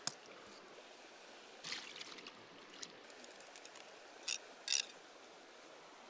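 A shallow river running over stones, a steady faint rush of water. Over it come a few short, sharp handling noises about two seconds in, and two louder ones a little after four seconds.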